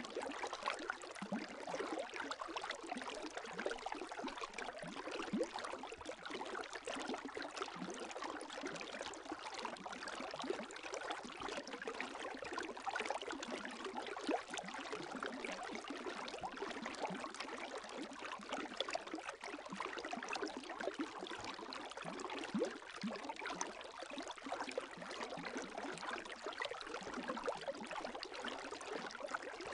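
Gentle lake waves lapping, a continuous fine splashing and trickling with no pauses and no distinct wave breaks.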